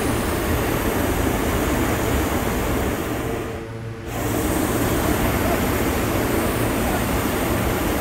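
Hot air balloon propane burner firing a steady hissing blast into the envelope to heat it for launch. It cuts out briefly about three and a half seconds in, then fires again.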